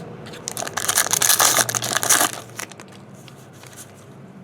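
Foil trading-card pack wrapper being torn open and crinkled, a loud crackling tear lasting about two seconds, followed by a few light handling clicks.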